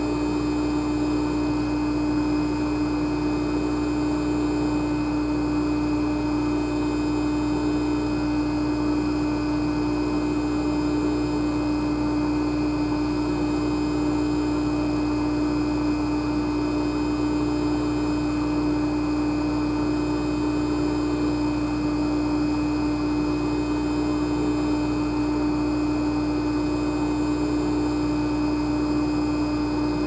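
Jacuzzi running: a steady motor hum with one strong low tone over an even wash of churning water, unchanging throughout.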